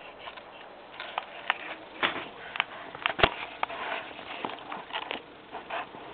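Camera handling noise as the camera is picked up and held out at arm's length: scattered clicks, knocks and rustling of fabric, with the sharpest knock about three seconds in.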